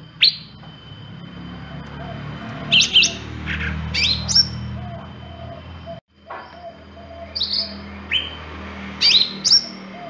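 Caged cucak ranting (a leafbird) singing: short, sharp, high chirps that sweep downward, given in quick clusters of two or three with short gaps between.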